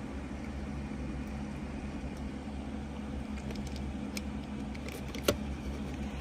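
Steady low hum in the background, with a few light clicks and taps from handling a box cutter and a cardboard box, and one sharper click a little over five seconds in.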